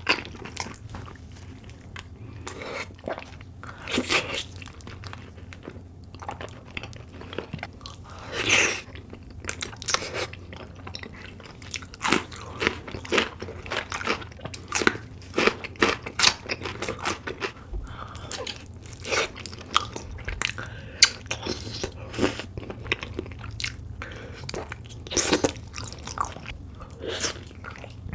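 Close-miked eating of spicy braised beef feet: irregular bites and chewing with many sharp crunchy clicks, and a few longer, louder mouthfuls.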